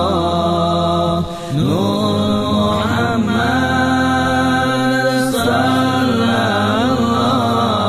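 A voice chanting an Arabic zikir in long, drawn-out melismatic notes, its pitch sliding between held tones and pausing briefly about a second in, over a steady low drone.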